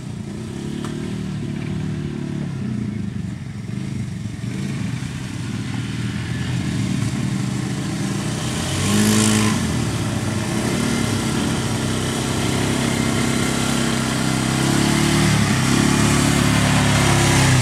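ATV engine running, its pitch rising and falling with the throttle and growing louder toward the end, with a short burst of hissing noise about nine seconds in.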